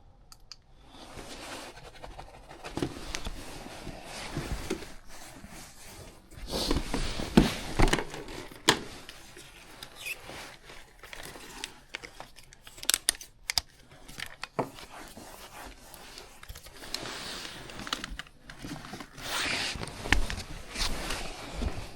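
Irregular rustling, crinkling and scraping with scattered knocks and clicks: someone moving about and handling things.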